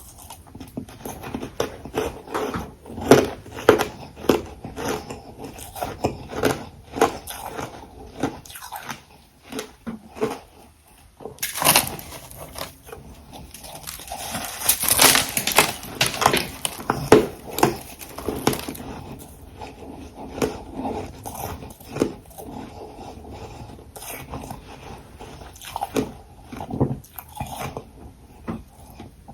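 Ice being bitten and chewed close to the microphone: a dense run of irregular crunching and cracking, loudest in bursts about 3 s, 15 s and 17 s in.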